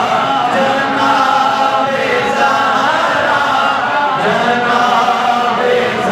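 A man chanting an Urdu manqabat, a devotional praise poem, into a microphone, drawing out long wavering notes without a break.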